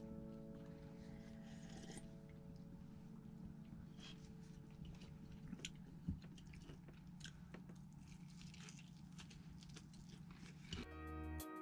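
Quiet chewing and crunching of fried chicken, with scattered faint clicks and one sharper tap about six seconds in.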